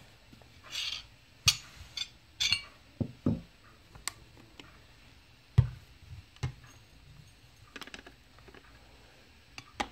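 Scattered light knocks and clinks as an electric spice grinder is handled and its ground spice tipped out onto a ceramic plate. The sharpest knocks come about one and a half and five and a half seconds in.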